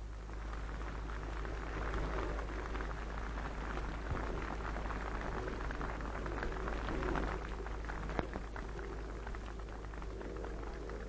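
Crackling, hissing surface noise over a steady low hum: the worn soundtrack of an old newsreel film, with a few louder ticks.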